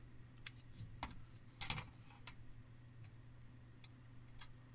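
Faint, irregular clicks and taps from handling plug-in circuit board modules, about seven of them, the loudest cluster a little under two seconds in, over a faint steady low hum.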